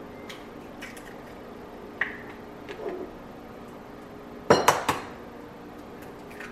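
Eggs being cracked against a ceramic mixing bowl. A few light clinks come first, then a quick run of three sharp knocks about four and a half seconds in.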